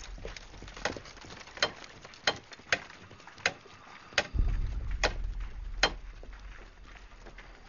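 A hammer driving a nail into a wooden crossbeam: about eight sharp blows, a little under a second apart.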